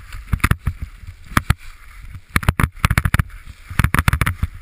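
Skis scraping and chattering over packed snow through turns, heard through a helmet-mounted camera as irregular clusters of sharp clicks and knocks over a low rumble.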